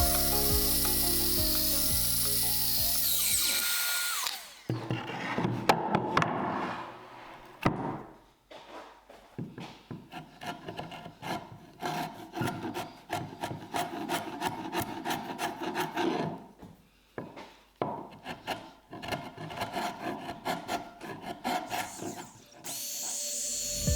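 Background music, then a hand tool working walnut wood in bursts of quick back-and-forth strokes, rubbing and rasping, with short pauses; the music returns near the end.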